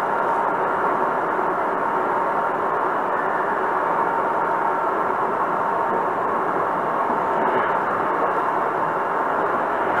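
Hankyu Kobe Line train standing at a station platform: a steady hum from the train and the platform, with a faint steady whine that fades out about seven seconds in.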